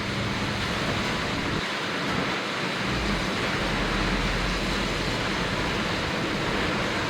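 Strong typhoon wind buffeting the microphone over heavy surf: a steady rush of noise with uneven low rumbling from the gusts.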